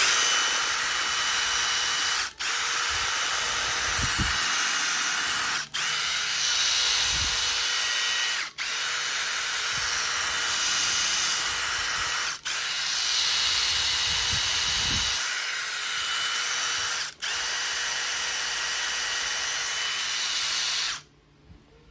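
White Makita DTD153 18V brushless impact driver running free with no load. Its motor spins in long trigger pulls of a few seconds each, broken by about five brief releases, and stops near the end.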